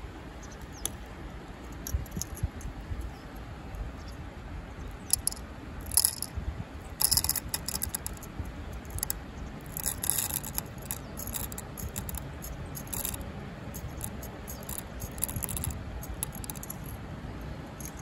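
Whole coffee beans poured into a clear container on a kitchen scale, rattling and clicking against it in several short bursts through the middle. A steady low rush of the river runs underneath.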